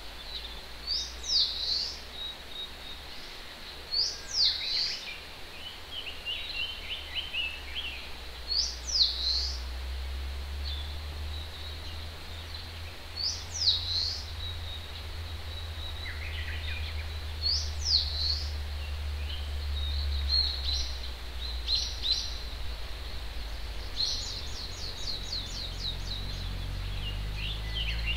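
Wild songbirds singing in forest. One bird repeats a short phrase of quick, high, falling whistles about every four seconds, with other birds chirping between its phrases and a fast trill near the end, over a low steady rumble.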